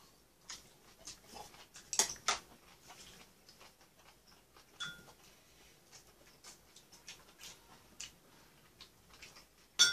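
Chopsticks and a spoon clicking and clinking against bowls and plates during a meal, in scattered light taps. Two sharper clicks come about two seconds in, and a clink with a brief ringing tone about halfway through and again near the end.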